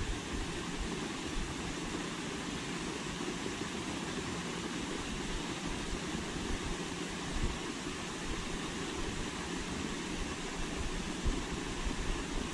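Steady outdoor background noise, an even rumble and hiss, with wind buffeting the microphone at the low end.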